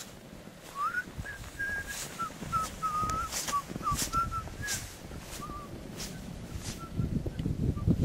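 A person whistling a string of short, wavering notes to call a lost pig, with crunching steps in snow.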